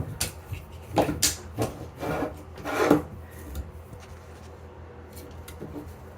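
Dryer vent cleaning brush on extension rods scraping along the inside of a 4-inch dryer duct as it is worked up and down against lint buildup. There are several short scraping strokes in the first three seconds, and then it goes quieter.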